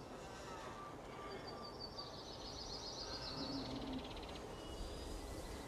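Outdoor ambience with birds singing: short high chirps and a fast trill in the middle, over steady background noise.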